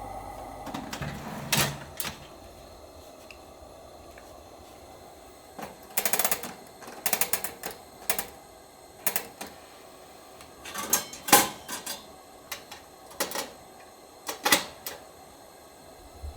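Irregular series of sharp clicks and clacks, some in quick clusters, as small hard objects are handled and set down.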